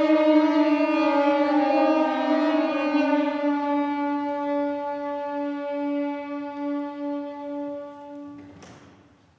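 Chamber ensemble of winds and strings holding long sustained notes. Several tones overlap at first, then thin to a single low held note that pulses gently, fades, and stops near the end, followed by a brief breathy rush of noise.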